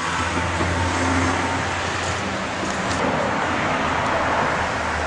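Ford Explorer 4.0 SOHC V6 engine running steadily, heard from underneath the truck as a constant low hum under a broad rushing noise.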